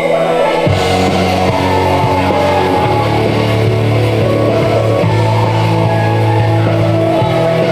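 Background rock music with distorted electric guitar and a heavy bass line that comes in under a second in.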